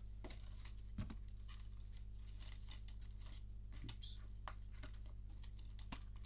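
Soft rustling and light taps of printed cards and packaging being handled, with a small knock about a second in, over a steady low hum.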